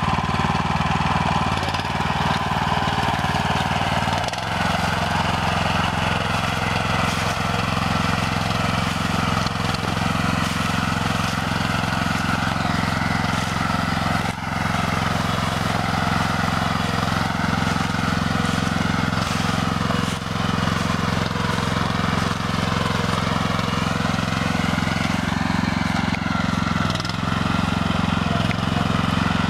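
Grillo G110 walk-behind tractor's single-cylinder engine running steadily under way as it pushes a buck rake through cut hay, with a few brief dips in level.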